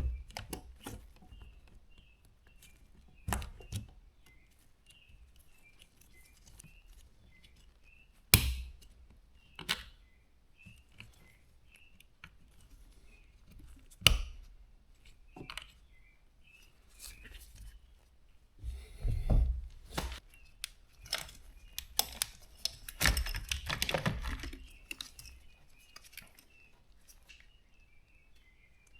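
Hand tools and dishwasher parts being handled while a pump assembly is taken off: scattered clicks, knocks and clatters, a few sharp ones several seconds apart and a busier cluster about two-thirds of the way through. Faint bird chirps carry on in the background.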